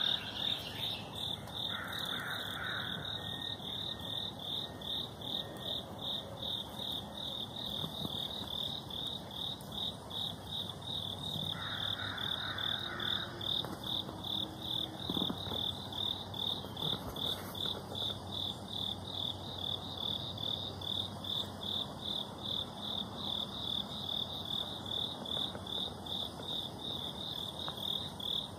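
An insect chirping steadily, about two high-pitched pulses a second.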